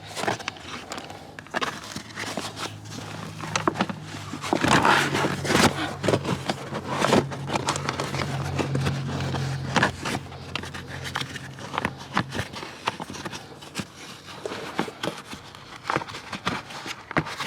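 Scraping, rustling and clicking of car floor carpet, trim and grommet being handled and pressed back into place. A steady low hum runs underneath from about three seconds in until it stops about twelve seconds in.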